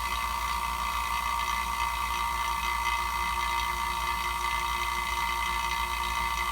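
Hilmor 9 CFM HVAC vacuum pump running steadily with its gas ballast closed, pulling a refrigerant system down into deep vacuum: an even motor hum with a steady whine.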